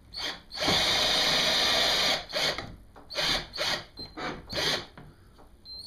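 Cordless drill/driver driving a screw through the GearTrac rail into the kayak's plastic hull: one steady run of about a second and a half, then several short bursts of the trigger as the screw is run down.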